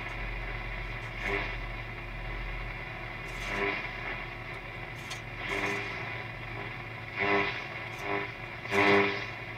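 Eddystone 840A valve shortwave receiver being tuned across the band with no antenna: hiss and swishes of noise from the speaker, with brief snatches of stations coming through more often near the end. A steady mains hum from the set runs underneath.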